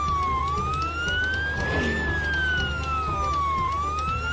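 Ambulance siren wailing, its pitch sliding slowly up and down, about one full sweep every three seconds.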